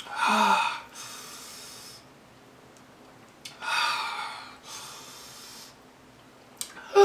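A person breathing hard and gasping through the mouth against the burn of very spicy sauce. There are two loud voiced exhales, one early and one about four seconds in, each followed by a softer breath, and a sharp click near the end.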